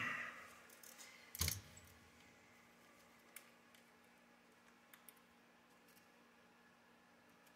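Small tools and metal hardware being handled on a workbench: a brief rattle at the start, one sharp knock about a second and a half in, then a few faint clicks.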